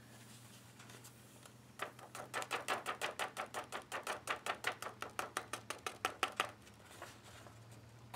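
Rapid tapping and shaking of a folded sheet of copy paper, about six taps a second for some four seconds starting about two seconds in, knocking loose embossing powder down the paper into its jar. A faint steady hum runs underneath.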